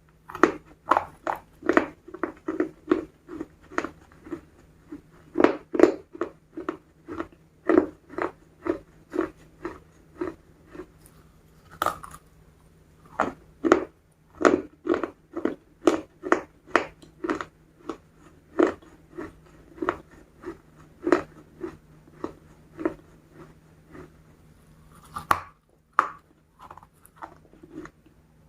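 Close-up crunching and chewing of crispy fried chicken, the crunches coming about two a second, with brief pauses between bites.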